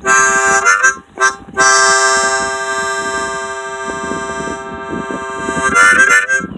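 Harmonica playing: a few short notes, then a long held chord lasting about four seconds, then more quick notes near the end.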